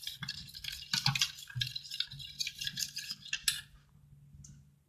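A utensil stirring clear glue and blue food colouring in a bowl, with irregular scraping and clicking strokes against the container that die away about three and a half seconds in.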